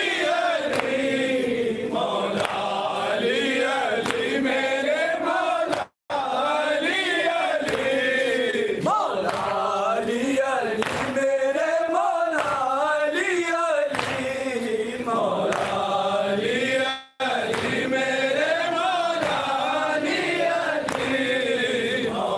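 A group of men chanting a Shia mourning lament (noha) together in a rising and falling sung line. The sound drops out for a moment twice, about six seconds in and again past the middle.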